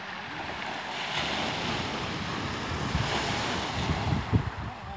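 Small waves breaking and washing up onto a pebble beach, with gusts of wind buffeting the microphone, heavier in the second half.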